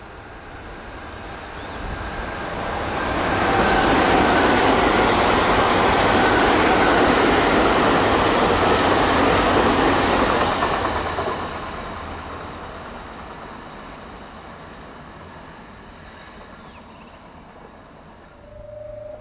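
Nankai 7100 series and 10000 series coupled limited express electric train passing through a station at about 86 km/h without stopping. Its rumble builds over a couple of seconds, stays loud for about eight seconds, then fades away.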